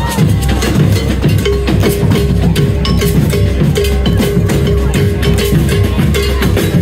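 Percussion-driven music: drums struck in a fast, dense rhythm, with a steady held note coming and going from about a second and a half in.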